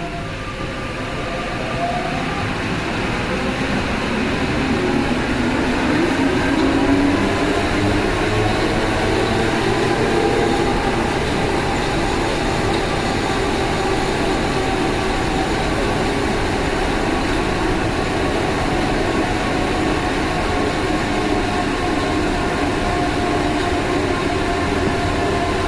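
MP89 rubber-tyred Paris Métro train running, heard on board its motor car. The traction motors whine, rising in pitch and getting louder over the first few seconds as the train picks up speed, then settle into a steady run with several held tones over the rumble. This is the motor-car noise that the uploader calls strange.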